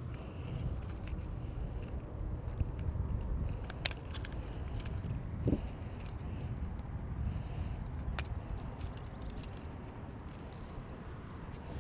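Light metallic clicks and rattles of a fishing hook and lure being handled as they are worked out of a small bass's mouth, a few sharp ticks standing out, over a low steady rumble.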